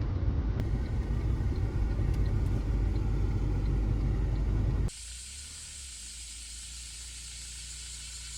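Vehicle driving noise: a loud, steady low rumble that cuts off abruptly about five seconds in, giving way to a quieter steady hum with hiss.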